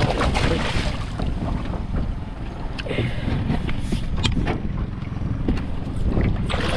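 Water splashing as a barramundi thrashes in a landing net at the surface, with wind rumbling on the microphone. Sharper splashes and knocks cluster about three to four seconds in.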